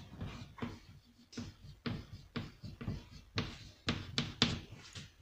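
Chalk writing on a blackboard: a run of short taps and scratches, about two a second, as each letter is stroked on.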